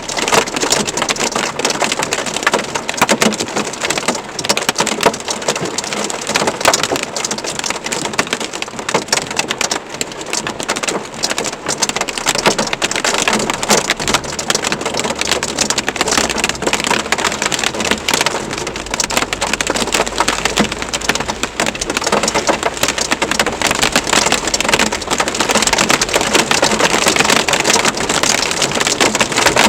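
Heavy rain mixed with hail pelting hard surfaces in a dense, rapid patter of countless sharp hits. A low rumble of thunder rolls under it through the middle.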